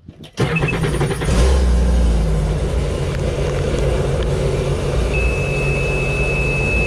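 A 2019 Sea-Doo FishPro's engine is started and idles steadily. About five seconds in, a steady high warning beep sounds for about two seconds: the check-engine alarm, showing that the P2080 exhaust gas temperature sensor fault is still active.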